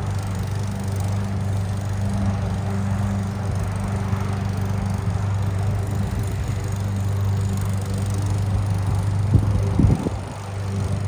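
Lawn mower running steadily with an even hum. A few sharp knocks near the end are the loudest sounds, and the motor sound dips briefly just after them.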